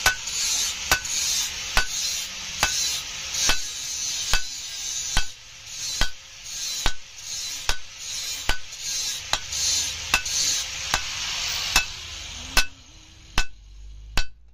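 Hand hammer striking steel on an anvil in a steady rhythm, a blow a little under every second, each with a short metallic ring, over a hiss that dies away near the end.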